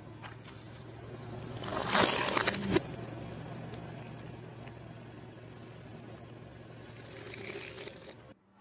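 Car engine idling steadily. About two seconds in comes a loud burst of squashing and cracking as the tyre crushes a watermelon, ending in a sharp crack.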